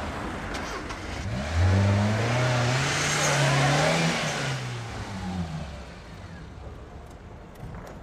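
A car engine revving as the car moves off, its note climbing in pitch for about three seconds, then easing off and fading.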